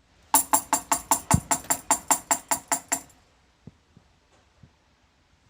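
Percussive music: a fast, even run of wood-block-like clicks, about five a second, that stops about three seconds in, followed by a few faint scattered taps.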